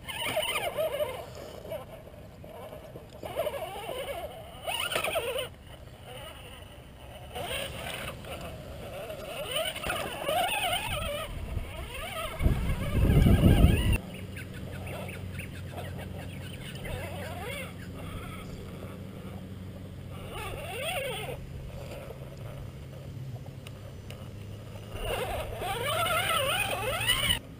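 Electric motor and gearbox of a radio-controlled rock crawler whining in short bursts, the pitch rising and falling with the throttle as it crawls over rocks. A loud low rumble comes about halfway through.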